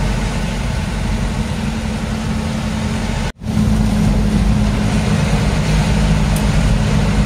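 Diesel truck engine running steadily as the truck drives, a low drone. It drops out abruptly for a split second about halfway through, then resumes slightly louder.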